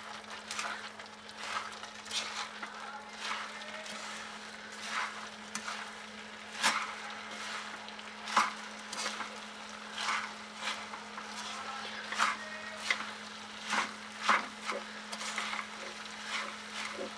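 A kitchen utensil stirring and scraping a pan of crushed dry fruits and coconut mixed into melted jaggery, in irregular strokes about once a second, over a faint steady low hum.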